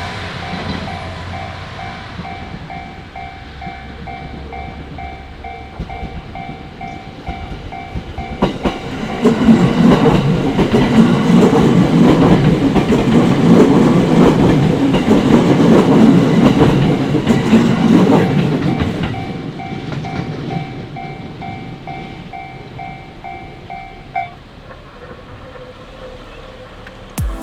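Japanese level-crossing warning bell ringing in a steady repeating pulse while an electric train passes over the crossing, the wheels clattering over the rail joints from about a third of the way in for some ten seconds. The bell stops a few seconds before the end.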